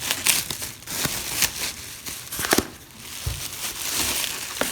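Packaging crinkling and rustling as it is handled and pulled open, with several sharp crackles.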